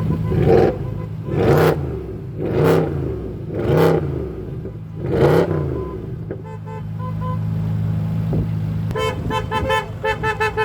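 BMW M135i idling and revved in five quick blips, each rising and falling in pitch with sharp exhaust bangs at its peak, then settling back to idle. Near the end a fast string of short tonal pulses sounds.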